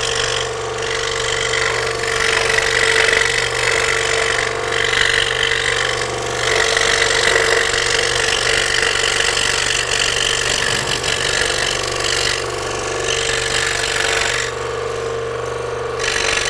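Scroll saw running, its blade cutting through thin plywood with a photo glued on as the board is steered by hand. The cutting sound drops away briefly several times over a steady motor hum.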